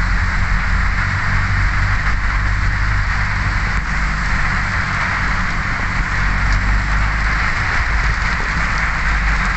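Heavy rain falling steadily on a vehicle's windshield and roof, heard from inside the cabin, over a low steady rumble from the vehicle.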